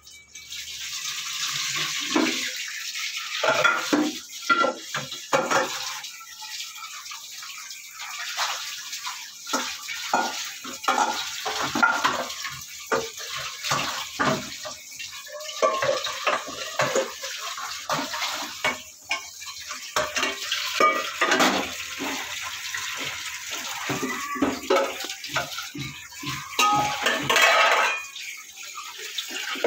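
Dishes being washed by hand under a running tap: a steel pot, plates and plastic bowls knocking and clattering irregularly over the hiss of running water.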